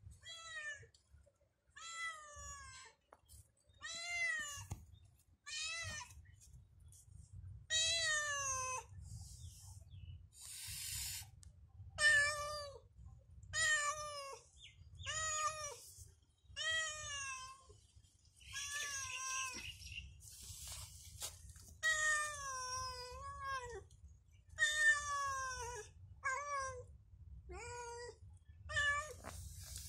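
Ginger-and-white cat meowing over and over, one call every second or two, each meow sliding in pitch.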